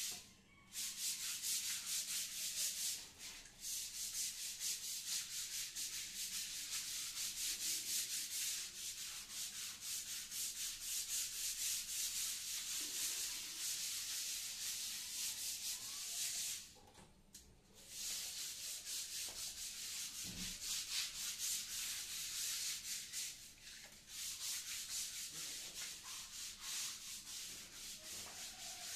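Hand scrubber scrubbing wet ceramic floor tiles in rapid back-and-forth strokes, with a few short breaks.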